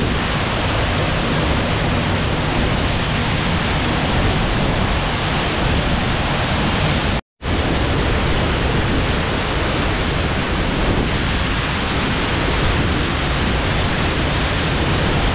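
A waterfall's water rushing in a steady, loud roar. It cuts out for a split second about seven seconds in.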